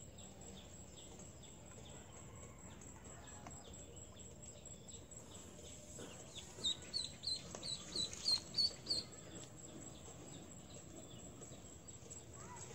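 Duckling peeping: a quick run of about nine short, high peeps starting about six and a half seconds in and lasting a couple of seconds, over faint outdoor background.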